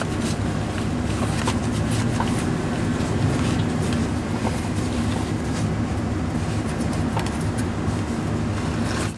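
A steady low mechanical drone, like a running motor, with a few faint clicks and rustles of the sensor wire and rubber grommet being handled.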